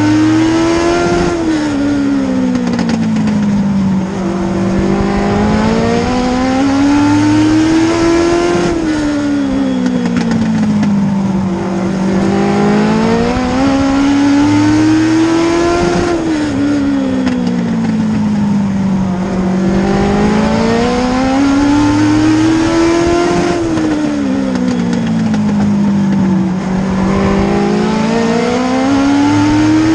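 Race car engine heard from inside the cockpit, running hard around an oval. Its pitch climbs for a couple of seconds as the car accelerates, then sinks back as it slows for the turns. The cycle repeats about every seven and a half seconds, once a lap.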